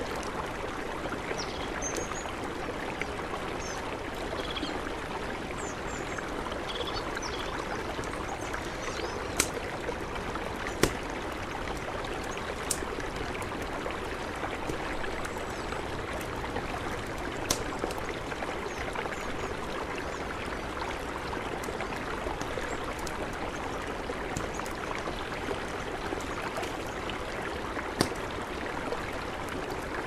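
A river flowing steadily, with a campfire crackling over it in a handful of sharp pops, the loudest about eleven seconds in. Faint short bird chirps come in the first several seconds.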